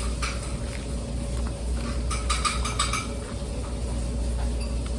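Utensil clinking and tapping against a dish or food container: one click near the start, then a quick run of clicks a couple of seconds in, over a steady low hum.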